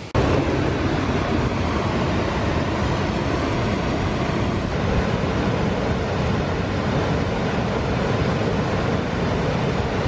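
Steady rush of a wide waterfall cascading in tiers over rock ledges into a pool.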